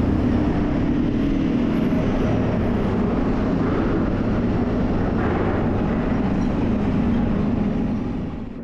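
A vehicle engine running steadily under a loud low rumble, with a faint wavering hum, fading out near the end.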